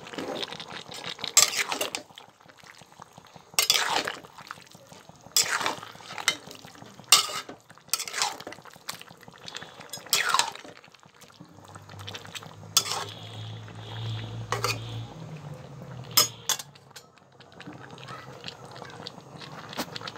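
Metal spatula scraping and clanking against the pot while stirring chicken pieces in thick gravy, a stroke every second or two, loudest in the first half. A low hum comes in for a few seconds past the middle.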